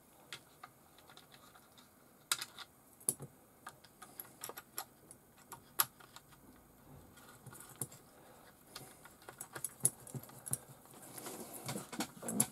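Irregular small clicks and taps of a screwdriver and small parts being handled against a plastic RC car chassis while the mounts are fitted, coming a little thicker near the end.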